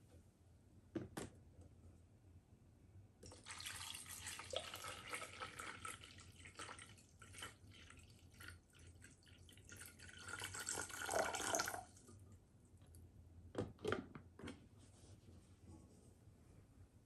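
Water poured from a stainless steel kettle into the top-fill tank of a humidifier: a splashing stream for about nine seconds that turns fuller and lower just before it stops. A short knock about a second in and a couple more after the pouring stops.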